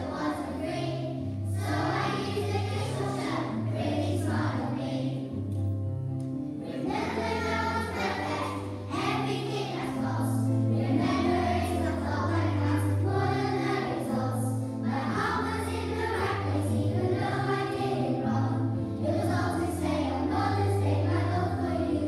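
A group of young children singing a song in unison over instrumental accompaniment with a steady bass line.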